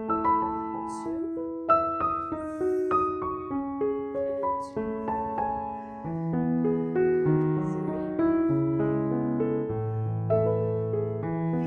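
Background piano music: a slow melody of sustained, ringing notes, with lower bass notes joining about halfway through.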